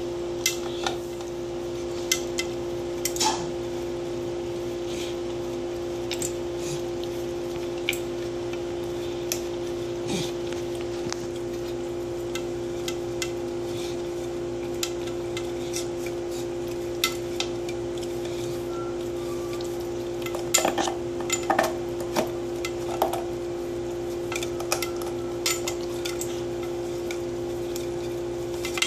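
Welsh corgi licking an empty food bowl long after the food is gone: the tongue and muzzle knock and scrape against the bowl in scattered clicks, with a busier flurry about twenty seconds in. A steady hum from the pet water fountain's pump runs underneath.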